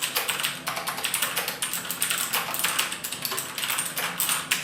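Fast typing on a Tesoro Excalibur Spectrum mechanical keyboard with clicky Kailh Blue switches: a rapid, continuous stream of sharp key clicks.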